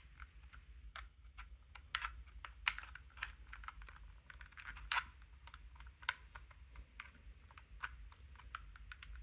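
Small flathead screwdriver prying at the seam of an Xbox One controller's plastic shell: irregular light clicks and scrapes of metal on plastic, a few sharper snaps among them.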